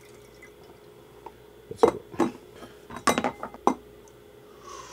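Metal utensil clinking against glassware: a handful of sharp clinks, a pair about two seconds in and a quick cluster around three seconds.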